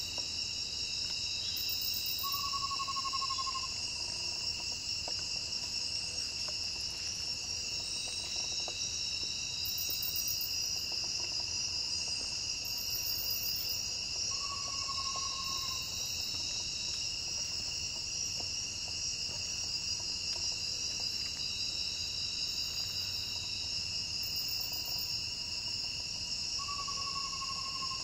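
Amazonian pygmy owl giving three short, slightly falling trills about twelve seconds apart, over a steady, louder chorus of crickets and other insects.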